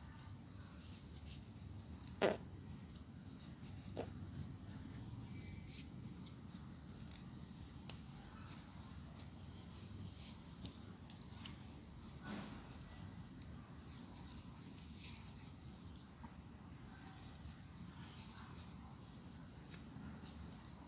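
Faint rustling and crinkling of folded paper units of a 3D origami model being handled and slotted together, with scattered small clicks and a few louder taps.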